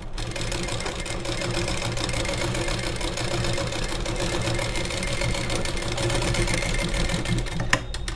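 Sewing machine running at a steady speed, stitching a cord into a folded strip of gold fabric to make thread piping, using a single-sided left presser foot. A sharp click near the end as it stops.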